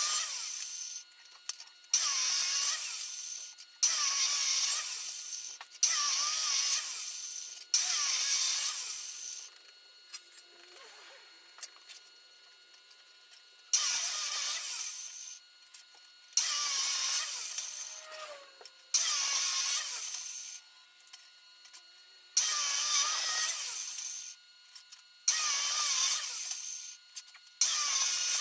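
A handheld power tool run in repeated short bursts of about a second or so each, stopping and starting again every couple of seconds, with a longer pause of a few seconds in the middle.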